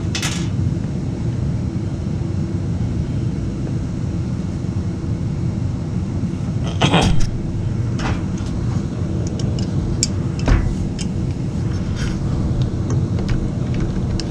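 Steady low rumble with scattered clicks and knocks, the loudest about seven seconds in and another about ten and a half seconds in: hands working the hose clamps and hoses on a washing machine's water valve.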